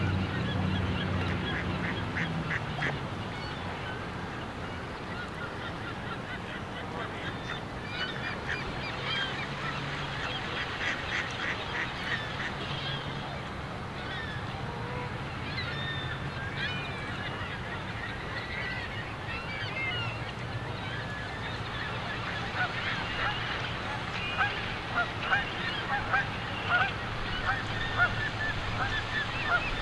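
Canada geese honking on the water, scattered calls that grow louder and more frequent in the last third, over a steady low hum.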